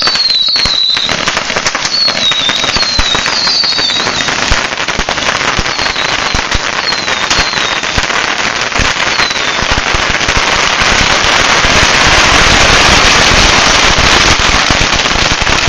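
Hundreds of bottle rockets chain-fired from a single fuse: a dense, unbroken crackle of launches and pops, with short falling whistles in the first few seconds. The barrage grows denser and louder over the last few seconds.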